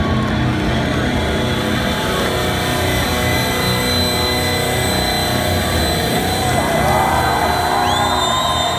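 Loud live rock band sound playing a dense, sustained wall of sound through the festival PA, recorded from inside the crowd. Audience cheers and whistles rise over it near the end.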